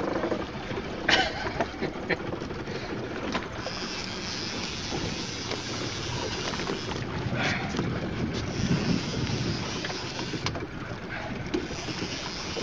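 Wind buffeting the microphone over the wash of the sea around a small open boat, with a few brief knocks about a second in, about seven seconds in and near ten seconds.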